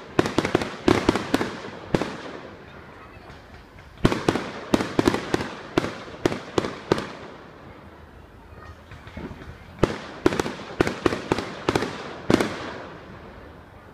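Fireworks bursting overhead: volleys of sharp bangs in three quick clusters, with short lulls between them.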